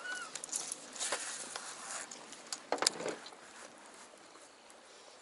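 Light rustling and scattered clicks of a baitcasting rod and reel being handled through a cast from a small boat. A short sharp knock about three seconds in is the loudest sound, and a brief high chirp comes at the very start.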